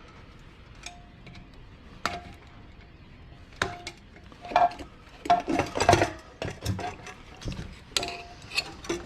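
Irregular metallic clinks and knocks of small parts and tools being handled while a centrifuge is taken apart, a few ringing briefly. They are sparse at first and come thick and fast from about three and a half seconds in.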